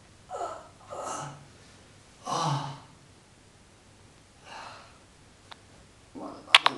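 A man gasping and breathing heavily while squatting and straining, four separate breaths, the one about two and a half seconds in the loudest.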